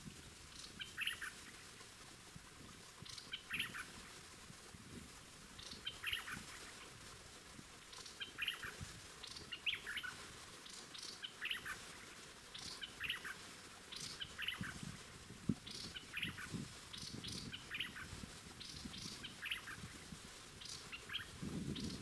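Bulbuls (hoành hoạch) calling, a short chirping phrase repeated about once a second. Soft low thumps come in the second half.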